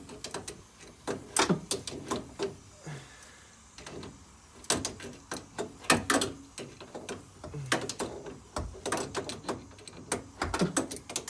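Irregular metallic clicks and knocks of a spanner working the pipe nuts loose under a combi boiler.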